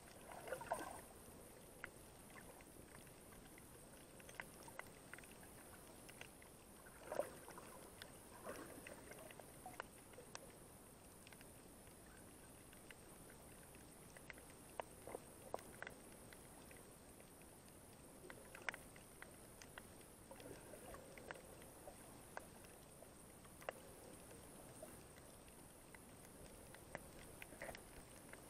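Faint underwater sound picked up by an action camera held under water: scattered small clicks and knocks over a low hiss, with a brief swish of water about half a second in and another about seven seconds in.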